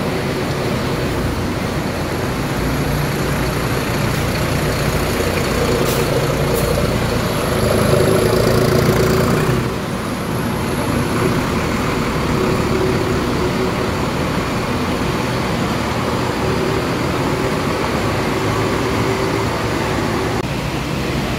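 Diesel engine of a Kramat Djati Jetbus coach running as the bus pulls away. It grows louder about seven seconds in and drops off suddenly near ten seconds, then goes on as a steadier hum.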